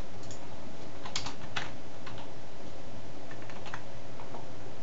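Typing on a computer keyboard: irregularly spaced keystroke clicks, some in quick clusters, over a steady background hiss.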